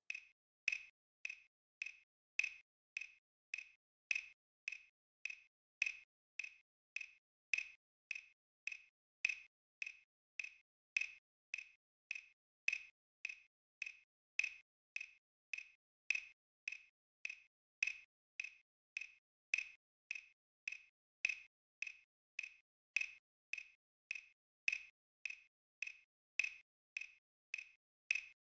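Electronic metronome click track ticking steadily, a bit under two clicks a second, counting quarter-note beats with no instrument playing.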